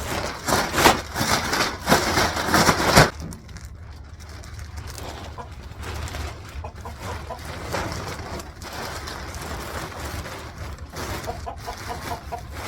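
Chickens clucking, with loud rustling noises in the first three seconds.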